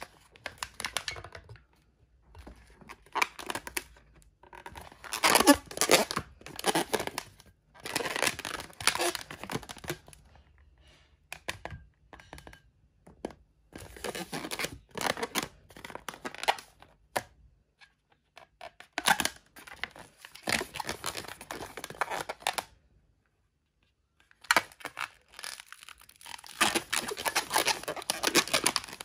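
Inflated latex modelling balloon rubbing and squeaking under the fingers as it is twisted and handled. The sound comes in several bouts of a few seconds, with short pauses between them.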